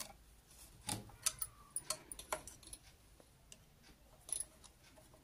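Screwdriver tightening the two screws that hold a sewing machine's shuttle race: irregular small metallic clicks and taps of the tip on the screw heads and steel, thickest in the first three seconds, with one more about four seconds in.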